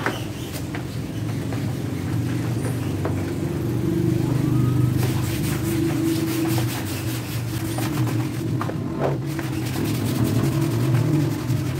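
A motor running steadily with a low hum, with a few short clicks and knocks over it.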